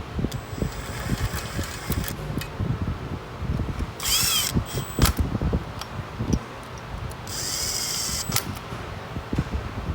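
Power drill running twice in short bursts, each with a whining motor pitch, amid scattered clinks and knocks of tools and metal parts being handled.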